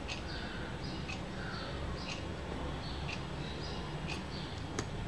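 Faint chirping repeating over a low steady hum, with a couple of small clicks near the end as fingers press parts and connectors into an opened smartphone.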